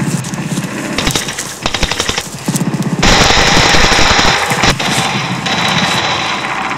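Automatic gunfire from several weapons in a firefight. It starts as rapid bursts of shots and becomes a dense, continuous barrage about three seconds in.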